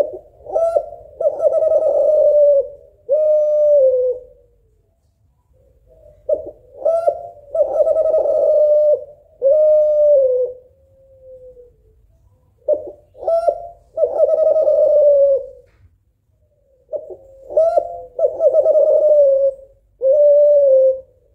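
Spotted dove of the Kelantan type (derkuku) cooing loudly: four phrases, each opening with a few short notes and running into a long drawn coo and a shorter falling final note.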